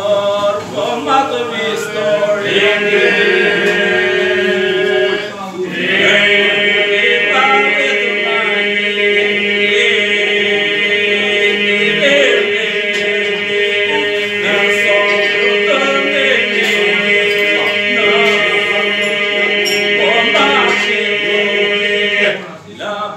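Men singing an unaccompanied Albanian Lab polyphonic song: the group holds a steady drone beneath solo voices that carry the melody above it. The singing breaks off briefly about five seconds in, starts again, and stops just before the end.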